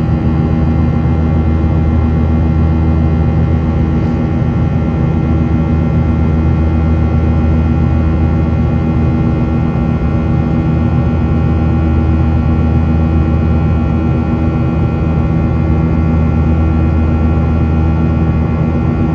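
Steady jet engine drone heard inside the cabin of a Boeing 737-900ER from its CFM56-7B turbofans, with several steady tones over the rushing noise.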